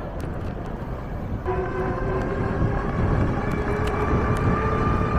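Wind rumble on the microphone of a moving e-bike. About a second and a half in, a sustained chord of several steady tones comes in over it and holds.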